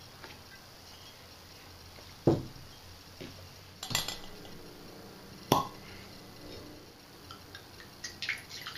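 Glass decanters, a wine bottle and a metal funnel clinking and knocking as they are handled on a table: three sharp clinks, about two, four and five and a half seconds in, the first and last the loudest. Near the end, wine begins to pour through the funnel into the decanter.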